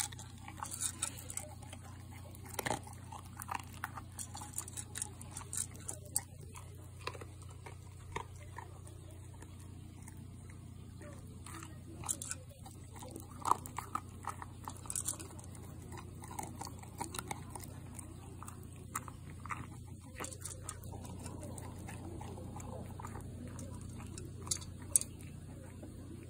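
American Cocker Spaniel eating dry kibble from a bowl: irregular crunching and chewing, with kibble clicking against the bowl. A steady low hum runs underneath.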